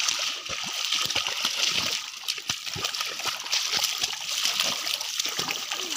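Shallow muddy pond water splashing and sloshing as people wade through it, many small splashes in quick succession.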